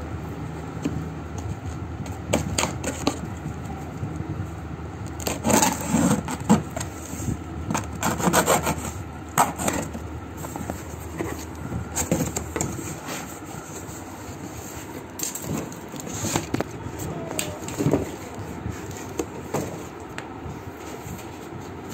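Cardboard shipping box being opened by hand: the taped seam being torn open and the cardboard flaps rubbing and scraping, in irregular bursts of scrapes and rustles that are busiest from about five to nine seconds in.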